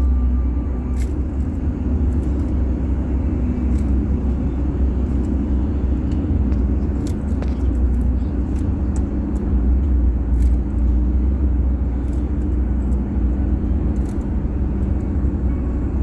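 A steady low rumble, with scattered faint clicks of a Rubik's Cube being twisted as it is scrambled.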